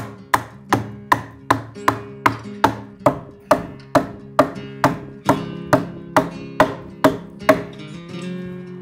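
An adze chopping into a cedar log in steady strokes, about two and a half a second, stopping about seven and a half seconds in. Light guitar music plays underneath.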